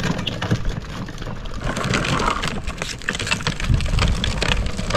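Plastic wheels of a child's ride-on toy rolling over a rough concrete and dirt path, with a steady crackling rattle and low rumble.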